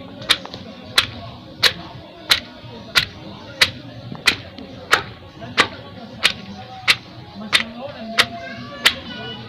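Wooden pestle pounding bandindi stems in a wooden mortar, a steady rhythm of sharp thuds about one and a half strikes a second.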